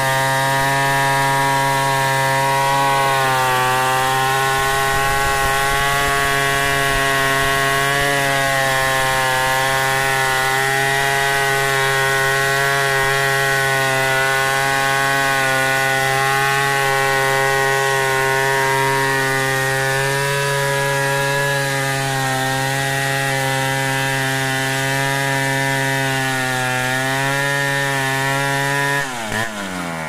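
Stihl 070 two-stroke chainsaw at full throttle under load, ripping a log lengthwise along the grain; its note stays steady with small dips. Near the end the throttle is released and the engine note falls quickly toward idle.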